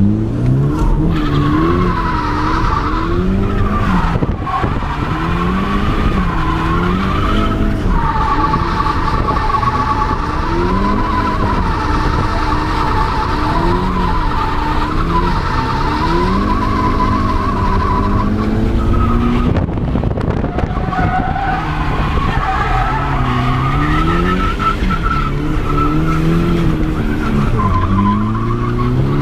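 Nissan S13's turbocharged SR20DE four-cylinder engine revving up and down repeatedly while drifting, with the tyres squealing in long, wavering stretches, heard from inside the cabin.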